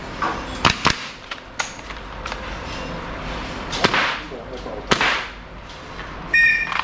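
Airsoft gas blowback pistols firing, a string of sharp, irregularly spaced cracks from several shooters. A brief beep sounds near the end.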